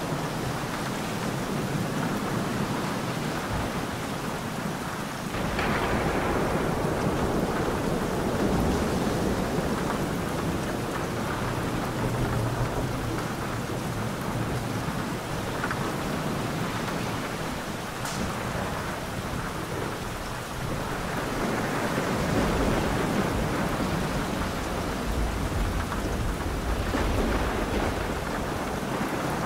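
Thunderstorm: heavy rain falling steadily with thunder rumbling. The rumble swells about five seconds in, and a deeper, low roll of thunder builds about two-thirds of the way through.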